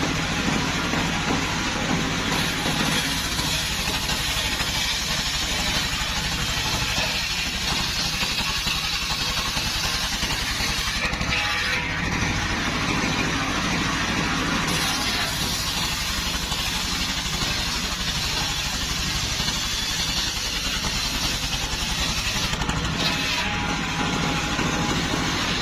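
Engine of a mobile circular sawmill running steadily with an even, fast low throb, driving a large circular saw blade that is ripping logs into boards.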